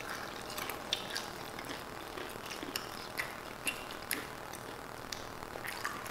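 Close-miked eating sounds: scattered, irregular clicks of chewing and lip smacks mixed with a fork clicking and scraping through a bowl of burrito filling.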